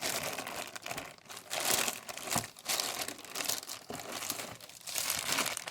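Packaging crinkling and rustling in uneven spurts as hands dig through a box.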